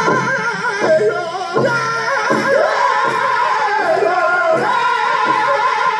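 Powwow drum group singing a prairie chicken dance song: several high, wavering voices in unison over the steady beat of a big drum.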